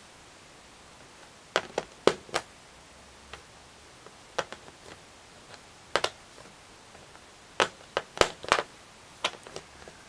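Sharp clicks of Lego plastic as a minifigure and its small launcher are handled and pressed onto a baseplate's studs: about a dozen scattered clicks, several in quick succession between about seven and a half and nine and a half seconds in.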